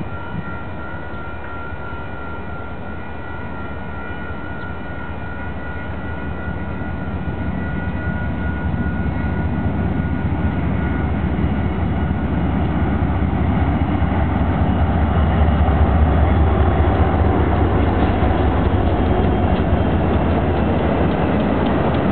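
Union Pacific freight train approaching and passing, led by diesel locomotives whose low engine rumble grows steadily louder and peaks about two-thirds of the way through as they go by. A loaded string of tank cars then rolls past on the rails.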